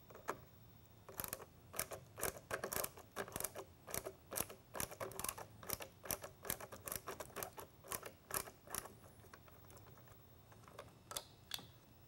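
Phillips screwdriver backing a mounting screw out of a lightbar lighthead module's bracket: a run of small, irregular metal clicks, about three or four a second, thinning out after about nine seconds.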